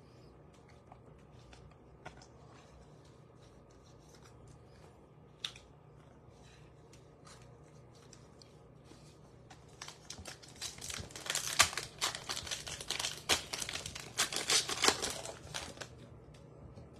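Faint ticks of cards being handled, then, about ten seconds in, a foil baseball card pack wrapper torn open and crinkled: several seconds of sharp, loud crackling.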